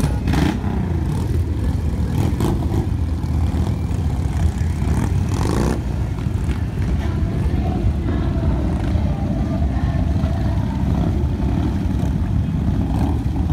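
A group of cruiser motorcycles riding past in a steady stream, their engines running with a continuous deep, low-pitched rumble.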